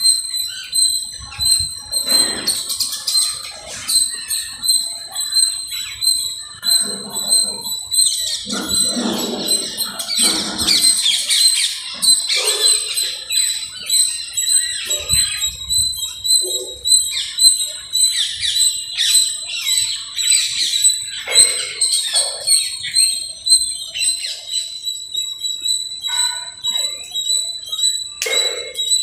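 Birds chirping and calling, many short overlapping calls, over a steady high-pitched tone.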